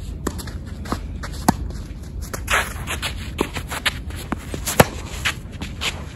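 Tennis rally: sharp pops of racket strikes and ball bounces, with shoes scuffing and shuffling on the court between them. The loudest pop, nearly five seconds in, is a racket strike close by.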